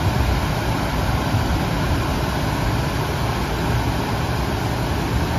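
Steady rush of water pumped over a FlowRider surf simulator, with wind rumbling on the microphone.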